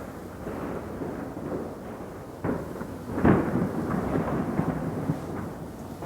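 Fireworks exploding: a series of bangs, the loudest about three seconds in, each trailing off in a rumbling echo over continuous distant booms.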